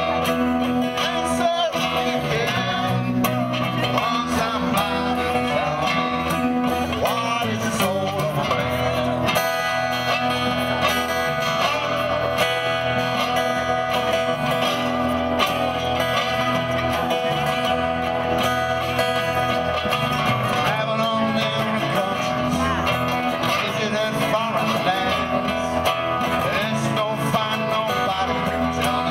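Background music led by plucked guitar, played steadily throughout.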